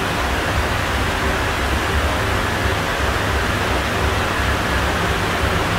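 Steady even hiss with a low hum underneath: room tone and microphone noise.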